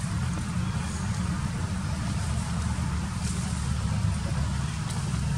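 Steady low rumble under a fainter even hiss.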